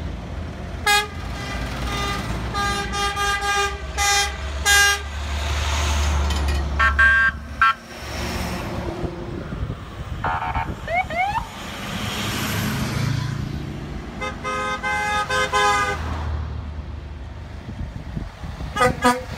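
A line of tow trucks driving slowly past, sounding their horns in repeated blasts, some short and some held for a second or so, over the low rumble of their diesel engines. The blasts come in clusters in the first five seconds, around seven seconds, between fourteen and sixteen seconds and twice near the end, with a few short rising siren whoops about eleven seconds in.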